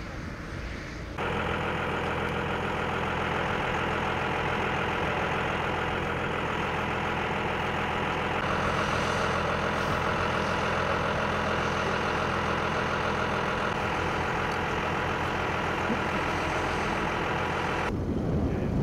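Heavy vehicle engine idling steadily, starting suddenly about a second in and cutting off shortly before the end.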